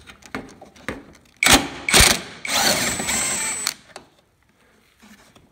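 Cordless drill-driver turning a long extension and T30 Torx bit to undo a front bumper bolt. A few light clicks and knocks come first, then two short bursts of the drill, then a steadier run of about a second before it stops.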